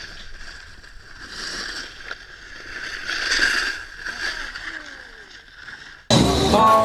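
A snowboard sliding and scraping over packed snow, heard as a rushing hiss that swells twice. About six seconds in, loud music starts abruptly.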